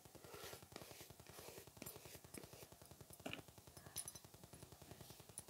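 Near silence: faint room tone with a rapid, even low pulsing and a couple of soft clicks, a little over three seconds in and about four seconds in.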